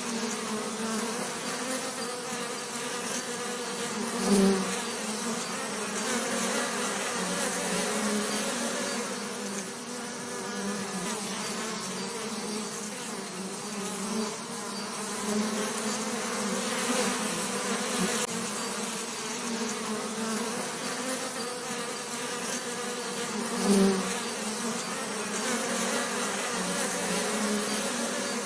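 Bees buzzing: a steady, wavering drone of several pitches, with two brief louder swells, about four seconds in and again about five seconds before the end.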